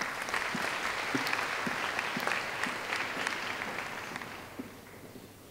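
Audience applauding, starting at once and dying away over the last second or two.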